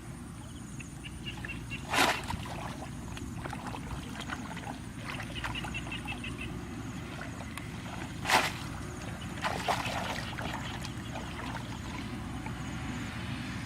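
Water splashing sharply a few times, twice loudly, over a steady low rumble, with faint short bird chirps in between.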